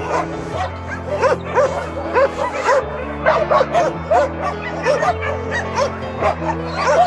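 Many dogs barking and yipping over and over, several calls a second, over background music with held chords.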